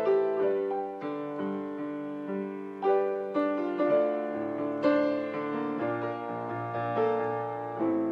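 Grand piano playing a slow, delicate piece in D minor, single notes and chords struck every second or two and left ringing.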